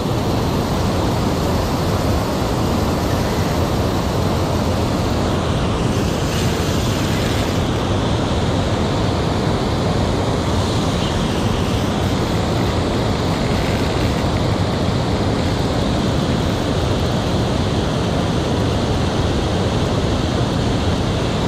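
Steady rush of water pouring over a low dam spillway.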